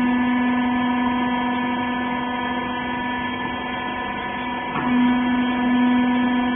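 Rag compression baler's hydraulic power unit running with a steady, even hum. A little under five seconds in, the hum dips and a short click is heard before the hum comes back at full strength.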